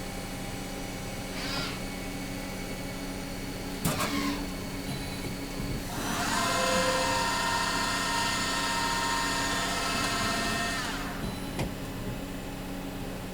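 1995 Hardinge Conquest T-42 lathe running under a steady machine hum: a sharp click, then the spindle spins up with a rising whine of several tones, holds steady speed for about five seconds, and winds back down.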